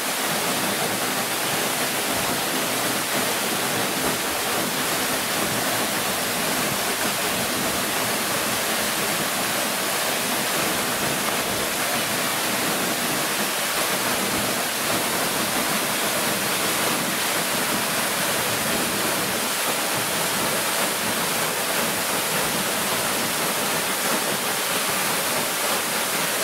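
Steady, unbroken rush of falling water, with a waterfall's constant hiss.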